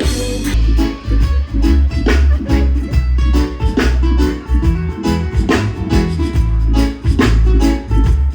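Background music: an upbeat song with plucked guitar over a steady beat and a heavy bass.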